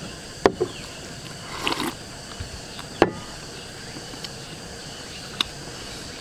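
Eating at a meal: two sharp clicks, about half a second in and again about three seconds in, as chopsticks knock against a ceramic rice bowl, with a brief spell of chewing between them and a few faint ticks later. A steady hum of summer insects runs underneath.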